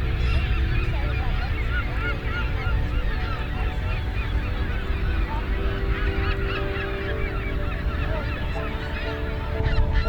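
Chorus of many birds calling at once at a nesting colony, a continuous din of short, overlapping honking calls, with wind rumbling on the microphone.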